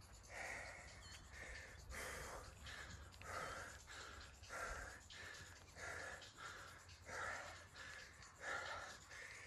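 A man breathing hard and rhythmically through his mouth, in and out about once a second, winded from the exertion of a long conditioning workout of squats and burpees.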